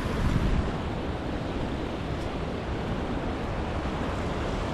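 Steady rushing of creek water pouring over small waterfalls and rapids, an even, continuous wash.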